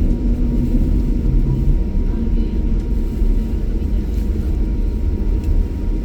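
Steady low rumble of a jet airliner's engines.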